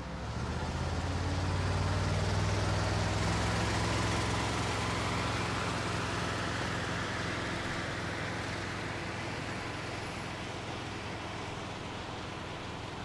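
Aircraft tug's engine running steadily as it moves a jet airliner by a tow bar on the nose gear. The low drone slowly fades as the tug and aircraft pull away.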